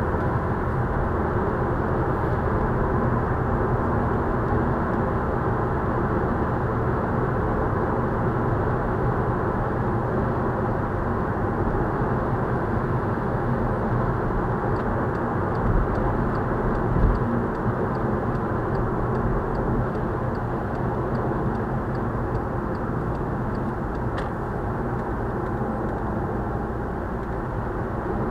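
Steady tyre, road and wind noise heard inside a Volkswagen Scirocco's cabin while it drives on a motorway. About halfway through, a light regular ticking starts, about two ticks a second, and runs for several seconds, with a single thump during it.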